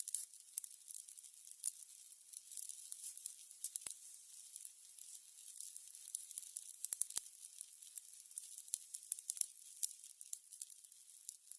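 Burning candles crackling: a dense, irregular run of fine high-pitched crackles, with a few sharper pops about four seconds and about seven seconds in.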